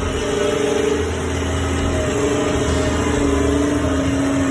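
Heavy diesel engine of a large tracked machine running steadily, a low engine note with a steady whine over it.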